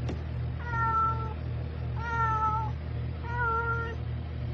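A cat meowing three times, each meow about two-thirds of a second long and held at an even pitch, over a steady low hum.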